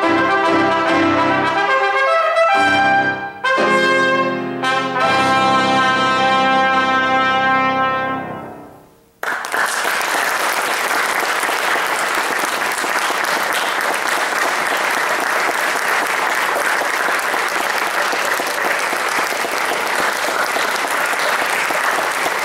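Trumpet and grand piano play the closing bars of a piece, ending on a long held chord that fades out about nine seconds in. Then an audience applauds steadily.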